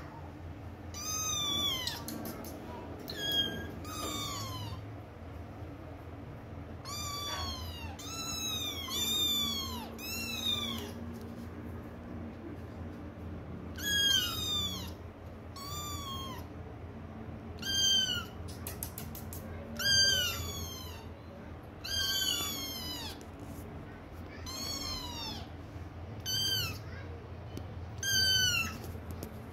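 Kittens meowing over and over, about eighteen high-pitched calls that each rise and fall, coming every second or two with short gaps, some louder than others.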